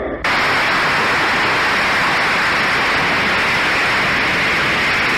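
Dense crowd applause from the show's recorded soundtrack, a steady wash of clapping that starts abruptly just after the line 'Sisters and brothers of America'.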